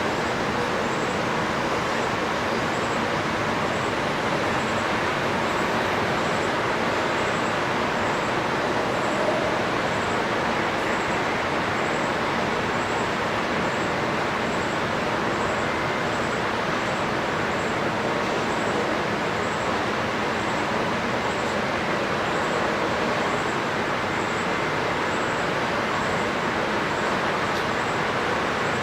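Steady rushing of water, swollen after the typhoon, with a faint high-pitched pulse repeating a little faster than once a second.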